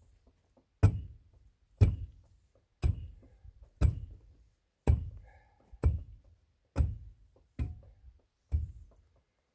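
Dull, heavy thuds, ten in a row at a slightly uneven pace of about one a second, each dying away quickly.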